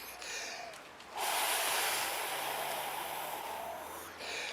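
A person's long, noisy breath close to the microphone, starting abruptly about a second in and lasting about three seconds.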